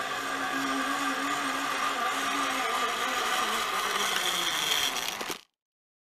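Zipline trolley pulleys running along the steel cable: a steady whirring whine that grows slightly louder as the rider nears, then cuts off suddenly about five seconds in.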